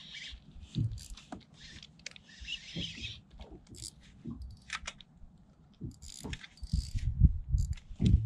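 Spinning reel sounding in short bursts while a hooked fish is played on light tackle, with scattered clicks and handling knocks from rod and reel. Heavier low knocks come in the last two seconds.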